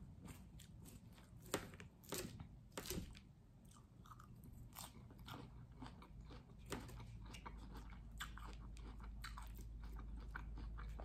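Close-up chewing of a crunchy salad, with irregular crunches throughout, the loudest between about one and a half and three seconds in.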